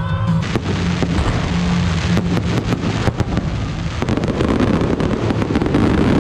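Fireworks display with aerial shells bursting in a rapid string of sharp bangs and crackles. From about four seconds in it thickens into a dense, continuous crackling rumble.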